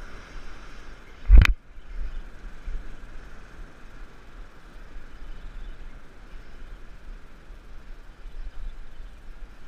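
Sea surf washing against rocks, with wind rumbling on the microphone, and a single sharp thump about a second and a half in.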